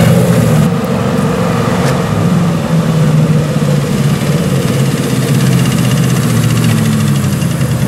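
Turbocharged V8 engine of the Brutus custom car running steadily at low revs as the car rolls slowly past, with no sharp revving.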